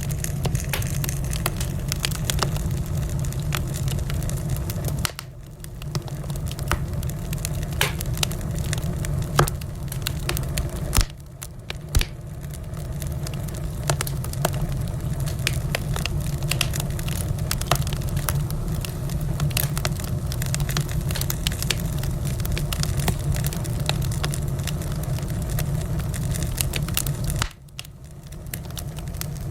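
Wood fire burning, with a steady low roar and frequent sharp crackles and pops, a few of them louder. The sound dips briefly three times before picking up again.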